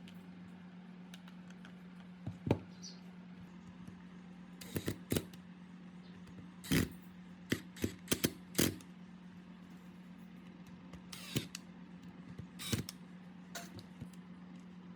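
Scattered sharp clicks and knocks of tools and parts being handled, in small clusters, the busiest run coming in the middle, over a steady low hum.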